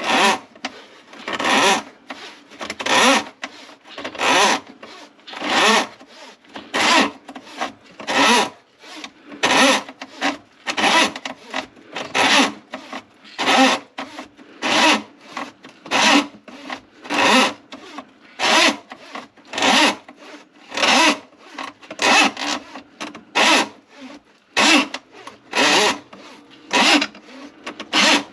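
Plumbing drain-cleaning cable (drain snake) rasping in a grease-clogged kitchen drain line, worked in even strokes about three every two seconds.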